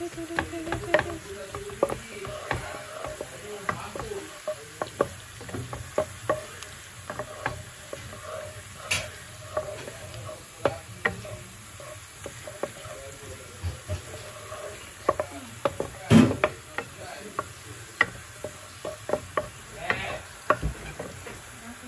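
Chopped red onion and garlic sizzling in oil in a non-stick wok while being sautéed until fragrant, with a steady hiss. A wooden spatula scrapes and taps against the pan at irregular intervals as it stirs, with one louder knock about two-thirds of the way through.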